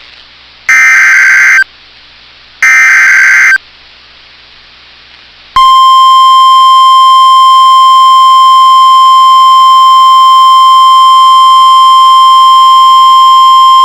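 Emergency Alert System broadcast on NOAA Weather Radio: the last two of the three bursts of the digital SAME header, about a second each, then a short pause and the steady 1050 Hz warning alarm tone held for about nine seconds. Together they announce that a new warning message is about to be read.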